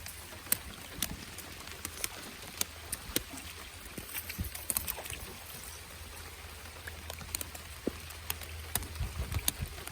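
Rain falling, with scattered drops ticking sharply at uneven intervals on nearby surfaces, over a low steady rumble.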